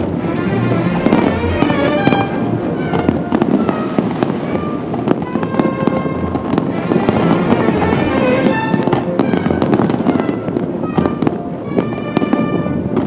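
Fireworks display, many shells bursting with sharp bangs in quick succession, with music playing along.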